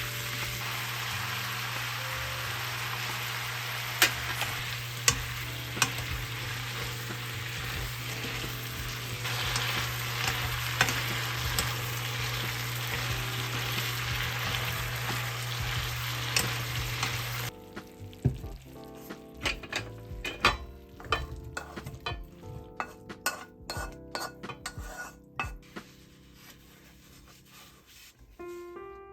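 Stir-frying in a pan while making jajangmyeon sauce: steady sizzling of oil with a spatula clicking and scraping against the pan. About 17 seconds in, the sizzling cuts off suddenly, and only scattered taps and clinks of utensils remain.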